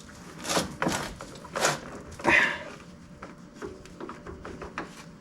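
A few sharp knocks and clanks, then lighter ticks and scrapes, as an oil filter is worked out by hand past a shifter cable under a car.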